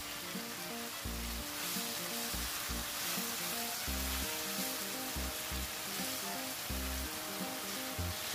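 Pork belly and soy sauce sizzling and bubbling in a nonstick frying pan as the pieces are stirred, with background music.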